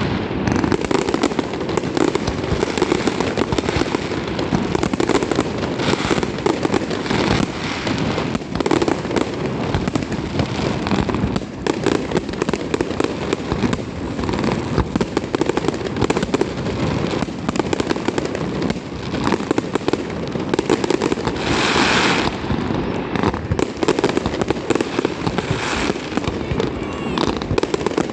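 Fireworks going off continuously, a dense, unbroken rattle of overlapping bangs and crackles with no gaps, with a brighter flurry of crackling about two-thirds of the way through.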